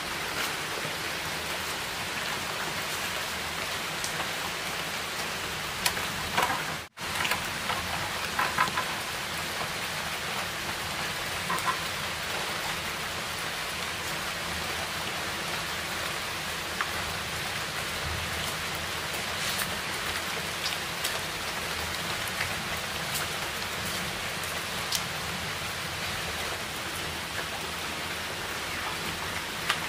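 Steady rain falling, with a few faint clicks; the sound cuts out for an instant about seven seconds in.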